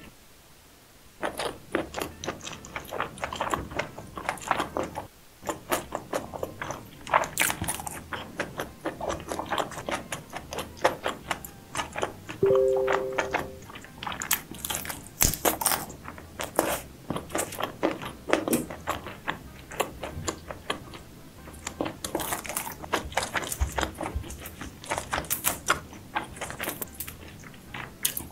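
Close-miked eating of seafood: irregular biting, chewing and crunching with many sharp clicks and cracks.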